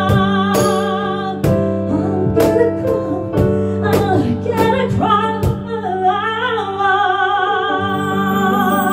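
A woman sings live, holding long notes with vibrato over a band of keyboard and drums. Sharp drum and cymbal hits punctuate the first half, and a cymbal wash swells in near the end.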